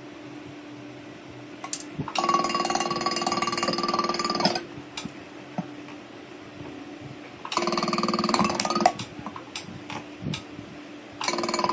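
1800A welding machine making three welds, each a loud buzzing, crackling burst: about two seconds long from two seconds in, a shorter one near the middle, and a third starting near the end. A quieter steady hum runs between the welds.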